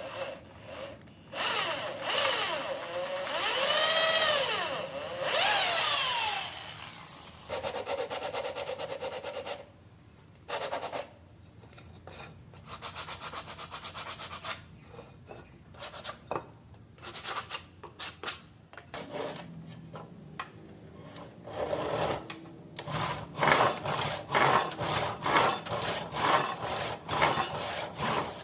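A hand tool worked in back-and-forth strokes on wood, rubbing and scraping. A rising-and-falling squeal comes about four to six seconds in, and near the end the strokes fall into an even rhythm of about one and a half a second.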